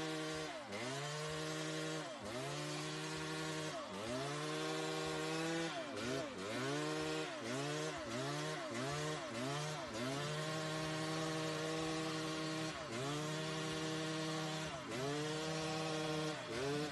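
Dirt bike engine revved hard and held at high revs, the throttle chopped and snapped open again every second or two, with a run of quick blips about twice a second partway through.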